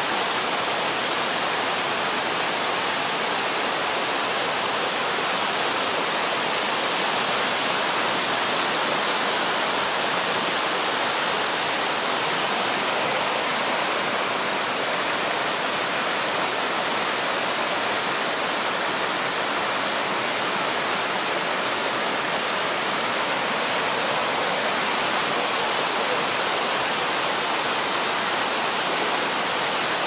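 Mountain stream water rushing down small waterfalls and over rocks: a steady, unbroken roar of falling water.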